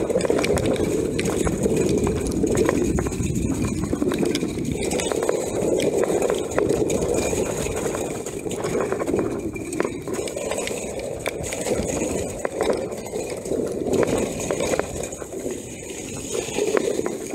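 Mountain bike ridden down a waterlogged, muddy trail: a steady rushing of tyres through mud and water, with the bike clattering and rattling over rough ground throughout.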